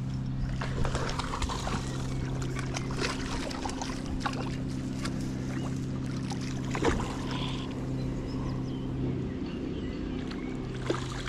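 A steady low mechanical hum, like a motor running, holds under scattered small clicks and knocks, with a sharper knock about seven seconds in.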